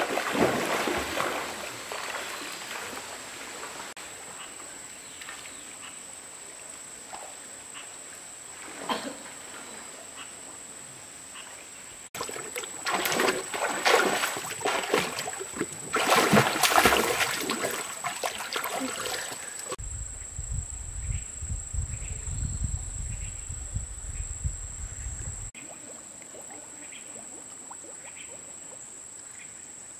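A swimmer's strokes and kicks splashing in river water, with a run of heavy splashes about halfway through and quieter lapping in between. A steady thin high whine runs underneath.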